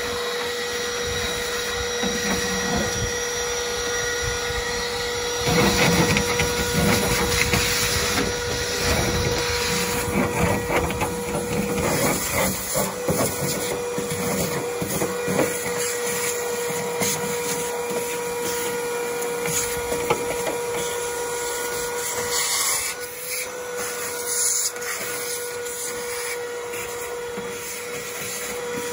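Canister wet/dry vacuum cleaner running steadily with a constant motor whine. From about five seconds in, the nozzle clatters and scrapes unevenly as it works over a car's bare metal boot floor; this eases off in the second half.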